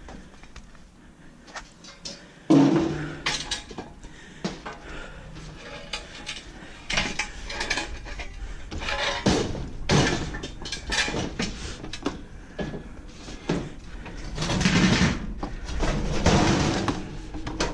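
Scrap metal clanking and banging as pieces are handled and dropped, with a loud clang about two and a half seconds in.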